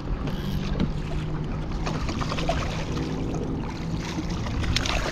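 Water sloshing against a kayak hull with wind on the microphone, and a small snook splashing at the surface beside the kayak near the end.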